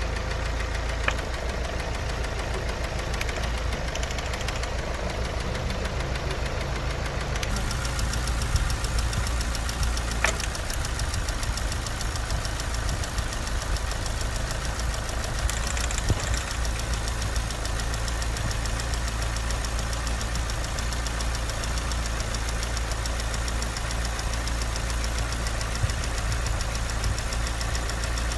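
Running engine, most likely a car's, with a fast, steady knocking running through its sound.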